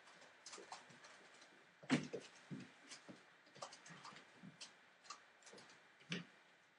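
Entlebucher Mountain Dog puppies' claws clicking and pattering irregularly on a hard floor as they move about and scuffle, with a few soft thuds, the loudest about two seconds in and another near the end.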